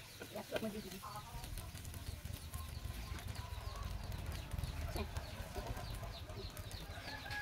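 Chickens chirping and clucking in the background: a run of short, high, falling peeps repeating a few times a second, over a low rumble.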